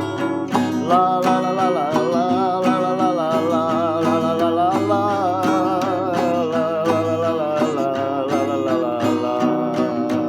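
Music: acoustic guitar strumming steadily, with a long, wavering melody line held above it.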